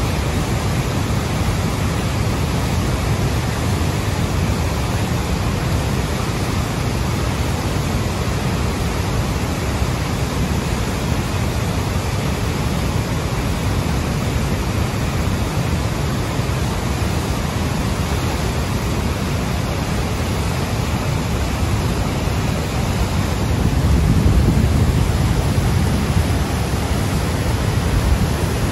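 Churning whitewater below a river dam, rushing steadily and loudly, a little louder near the end.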